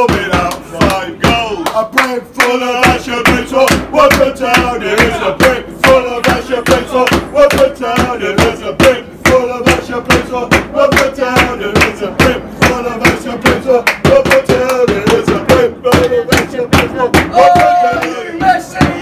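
A small group of football supporters singing a chant together, with hand claps and drum beats keeping a steady beat.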